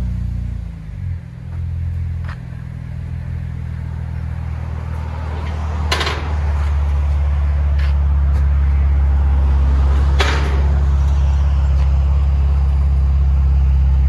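Chevy Impala's 3.6L V6 idling through a dual exhaust with Flowmaster Super 10 mufflers and the center resonator deleted, a steady low drone. It settles down from a rev in the first second, and a few short knocks sound over it.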